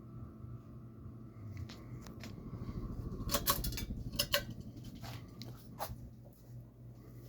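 Global Winds Alaska 52-inch ceiling fan running with a steady low motor hum. A few sharp clicks come through about halfway in.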